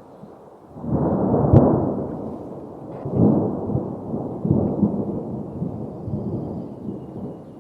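Thunder rumbling in several rolling swells, with a sharp crack about a second and a half in, then fading away.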